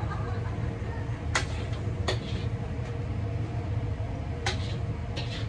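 A metal ladle clinks four times against the wok and the soup bowls as soup is served. Under it runs a steady low hum of kitchen machinery.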